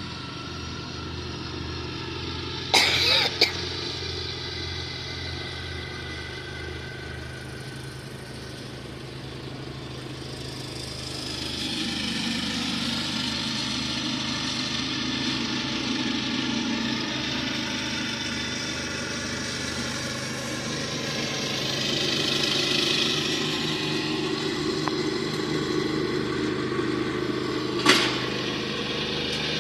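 Lawn mower engine running steadily, with a swell in its sound from about the middle on. Two sharp clicks cut through it, one about three seconds in and one near the end.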